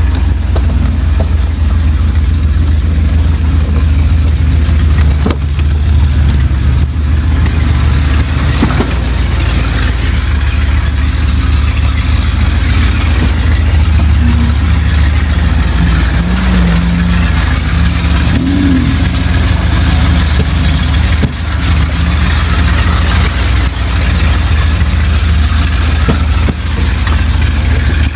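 An off-road 4x4's engine running steadily at crawling speed, heard from inside the cab, with a few brief knocks as the truck works along a rough trail.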